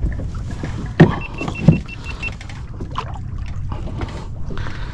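Handling noise on a fishing kayak: two thumps, about a second in and just after, with a short run of rapid high ticks between them, over a steady low rumble.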